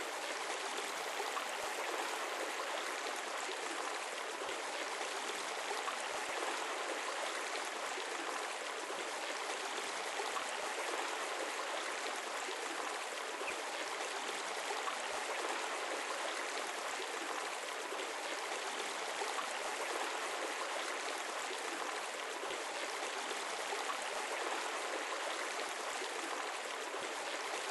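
Water from a small rock waterfall running steadily into a garden pond, an even rush of falling water.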